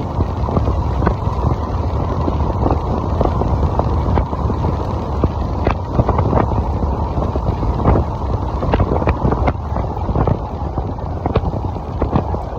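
Wind buffeting the microphone on a moving electric motorcycle: a steady low rumble with scattered small clicks and knocks throughout.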